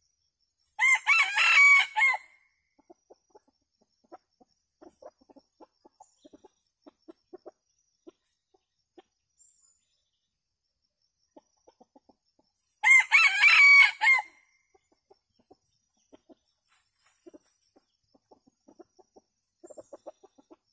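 Red junglefowl rooster crowing twice, about eleven seconds apart, each crow a little over a second long. Soft, short clucks come from the foraging flock in between.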